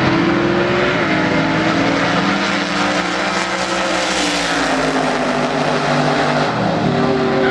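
V8 drag-race cars running at full throttle down the strip. The engine note slides down in pitch in the middle as the cars pull away, and another steady engine note comes in near the end.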